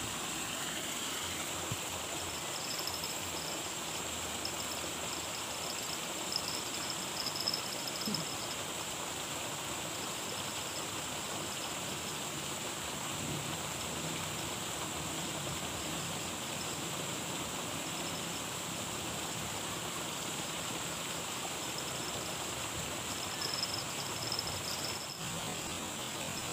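Insects trilling over a steady outdoor hiss: a high, unbroken tone, with louder trills coming and going a few seconds in and again near the end.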